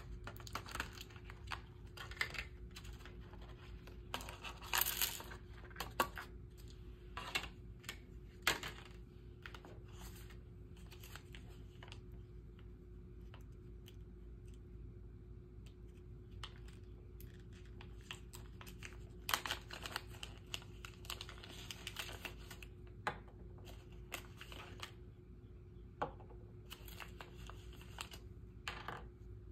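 Rustling, crinkling and tearing of packaging with scattered small clicks and taps, over a faint steady hum.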